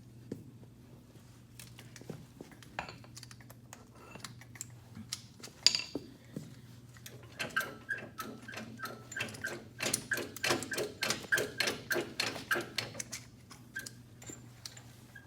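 Scattered metal clinks and knocks, then from about halfway a quick run of light, ringing metal-on-metal taps, about four a second for several seconds, as tools and steel parts of a hydraulic quick-coupler assembly are worked.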